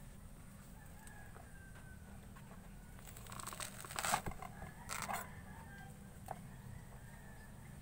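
Hands tearing and rubbing the spongy white pith of a peeled pomelo: a short run of rustling, tearing sounds between about three and five seconds in, loudest twice, over a steady low hum.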